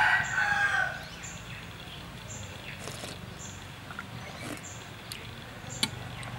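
A rooster crowing, the call ending about a second in. A faint high chirp repeats about once a second, and there is a sharp click near the end.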